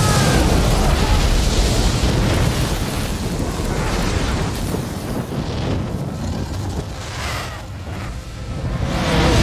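Film sound effect of a dragon breathing fire: a continuous, heavy rushing blast of flame, easing somewhat past the middle and swelling again near the end.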